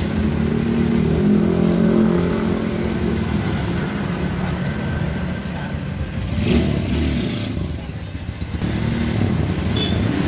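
Motorcycle engine running at a steady idle, with street traffic passing.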